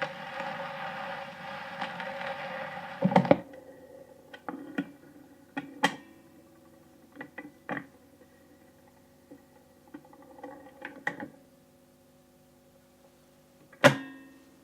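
A Bush SRP31D valve record player playing a record through its speaker, which stops with a loud clunk about three seconds in. Then come scattered clicks and knocks over a steady hum, with one loud click near the end.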